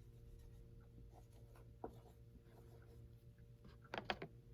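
Handwriting: faint, scattered scratches and taps of a writing tool on a surface, with a louder cluster of quick strokes near the end.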